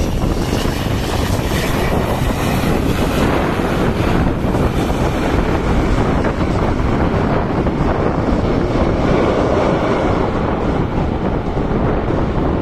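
Wind buffeting the microphone, mixed with the engine and propeller noise of an ATR twin-turboprop airliner touching down and rolling out on the runway. The sound is loud and steady throughout.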